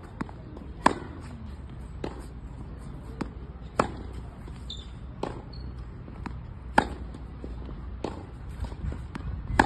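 Tennis rally: a racket strikes the ball hard about every three seconds, with softer ball bounces and more distant hits between the strikes, over a low steady rumble.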